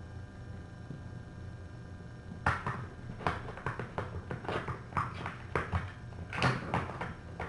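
Light knocks, taps and scrapes in quick, irregular succession, starting about two and a half seconds in: kittens playing close to the microphone.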